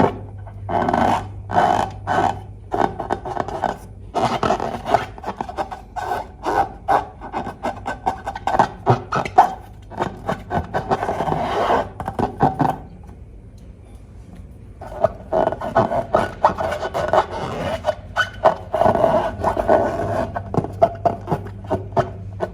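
Slime and balloons being handled: rapid, irregular rubbing, squishing and clicking noises, with a short lull a little past halfway.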